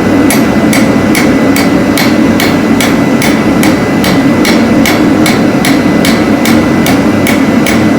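Hand hammer striking hot steel on an anvil in a steady even rhythm, about two and a half blows a second, forging out a screwdriver tip, over the steady low roar of the forge.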